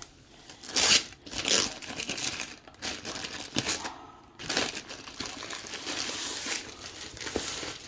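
Plastic packaging crinkling and rustling as a rolled diamond painting canvas is unrolled and handled, in irregular bursts, loudest about a second in.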